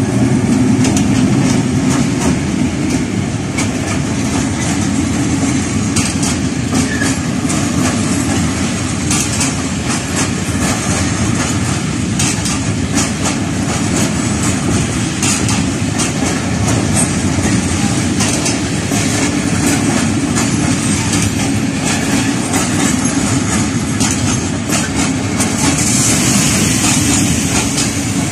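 Freight train of flat wagons rolling past close by behind an ST44 diesel locomotive, with a steady low rumble. Wheels click repeatedly over the track throughout.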